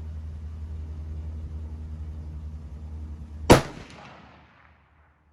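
A single shot from a .308 (7.62x51) rifle about three and a half seconds in, with its report dying away over about a second and a half. A steady low rumble runs under the first part.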